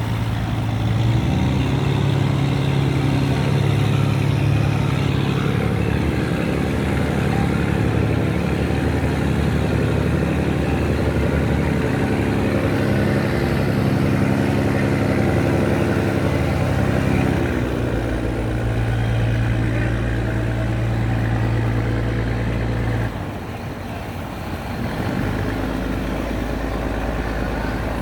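Boat engine running steadily under heavy load while towing a ship stuck in mud. Its note shifts deeper about two-thirds of the way through, and the level dips for a couple of seconds near the end.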